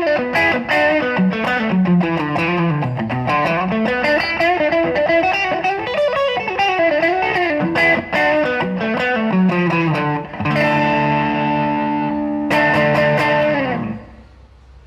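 Electric guitar played through a TC Electronic El Cambo distortion pedal: about ten seconds of single-note lead lines, then two held distorted chords, the second ringing out and fading near the end.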